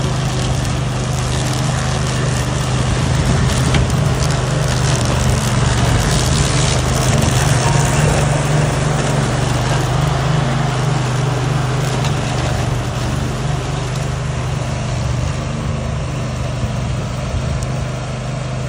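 Briggs & Stratton engine of a remote-control flail mower running steadily under load, with crackling as the flails chop through vegetation, a little louder a few seconds in and easing slightly near the end.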